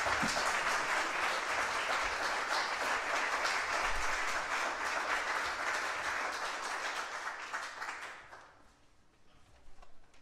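Audience applauding at the end of a tango quintet's piece, the clapping fading away about eight seconds in.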